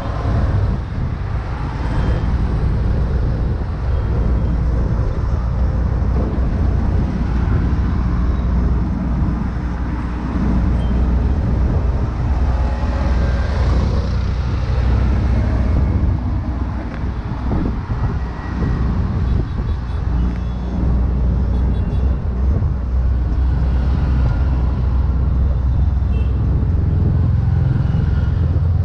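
Auto-rickshaw engine running steadily while under way in city traffic, heard from the open passenger cab with the road and traffic noise around it.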